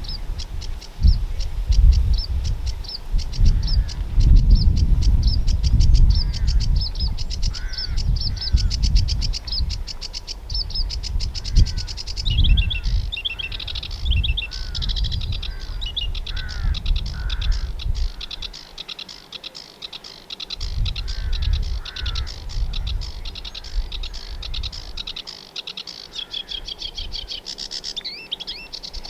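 Reedbed warbler song, a long run of fast, chattering, repeated high notes with a few lower whistled notes mixed in. Wind rumbles on the microphone in gusts until about two-thirds of the way through.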